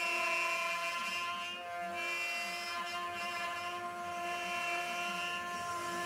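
Spindle of a wood CNC router running with its end mill cutting into a wood sheet: a steady whine with several tones. The highest tones fade briefly about one and a half seconds in.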